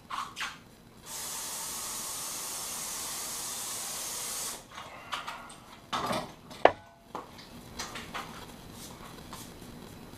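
Garden hose nozzle spraying water in a steady hiss for about three and a half seconds, starting about a second in. Then a few knocks and one sharp clack as things are handled at the metal dip tank.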